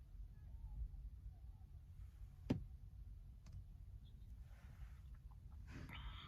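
Quiet, steady low rumble with one sharp click about two and a half seconds in and a few fainter ticks.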